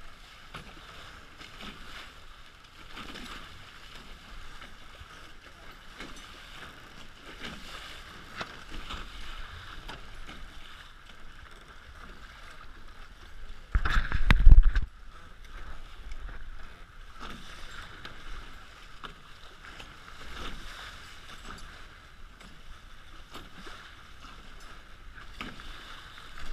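Water rushing and splashing along the hulls of a Hobie 16 catamaran under sail through chop, a steady noisy hiss with irregular swishes. A brief, much louder buffeting burst comes about halfway through.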